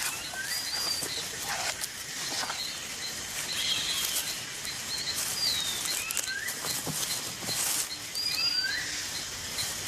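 Rainforest ambience: birds give short whistled calls, a rising note and a falling one, in a phrase that repeats a few times. Under them run a steady hiss of insects with faint regular ticking and several brief crackling rustles.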